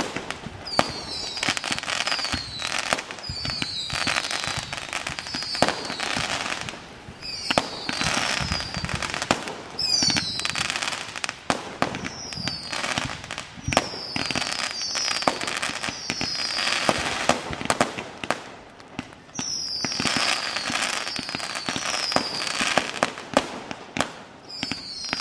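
Fireworks display: sharp bangs in quick succession over dense crackling, with many short whistles that drop slightly in pitch, coming in waves with a few brief lulls.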